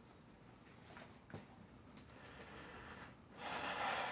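Quiet room tone with a faint click a little over a second in, then a person's short, sharp breath, about half a second long, near the end.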